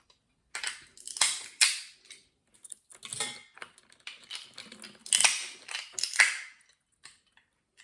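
Walnut shells being cracked, a series of sharp cracks and clatters of shell, the loudest about a second in and again around five and six seconds in.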